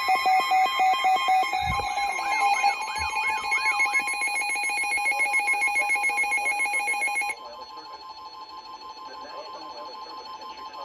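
Emergency alert attention tones: several electronic alert tones overlapping at once, some steady and some rapidly pulsing. The louder layer cuts off suddenly about seven seconds in, leaving quieter steady tones.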